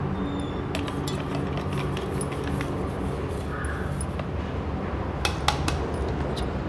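A steel bowl clinking and tapping while ground spice mix is emptied from it onto cut mango pieces. Scattered light clicks, with a few sharper ones about five seconds in, over a steady low hum.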